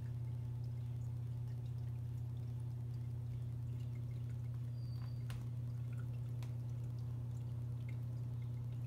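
Small all-in-one reef aquarium running: the return pump hums steadily in a low tone, with faint water trickling and scattered drips from the filter chamber.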